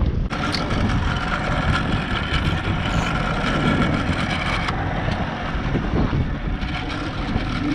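A boat's motor running steadily under wind and water noise, with a faint steady whine over it for the first few seconds.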